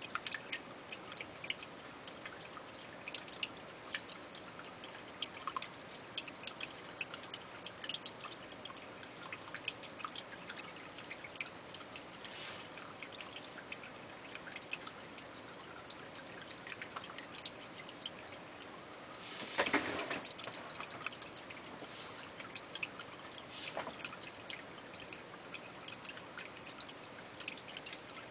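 Water trickling steadily, with many small drips, and a brief louder rush about twenty seconds in.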